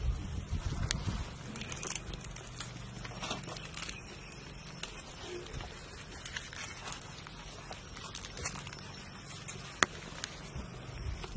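Handling sounds from hands assembling burgers: scattered rustles and small clicks from buns, plates and wrappers, with one sharp click near the end.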